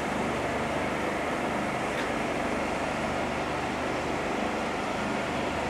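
Steady airfield background noise at an airshow, with a faint click about two seconds in.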